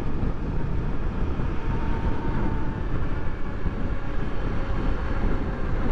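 Wind rushing over the microphone together with the running single-cylinder engine of a Honda XRE300 motorcycle cruising at about 60 km/h, the speed easing off slightly.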